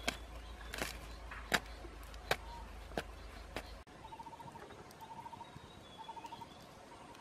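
Feathers being ripped from a dead bird by hand: six sharp tearing strokes, about one every three-quarters of a second, over a low hum. After a cut a little under four seconds in, the hum stops and short pulsing trills repeat in the quiet surroundings.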